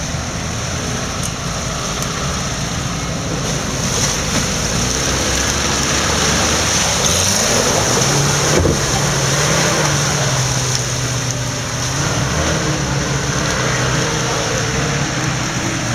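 Suzuki Samurai 4x4's engine revving as it drives through a creek, water splashing and rushing around the wheels. The engine note rises about halfway through and holds as the vehicle pulls up the muddy bank.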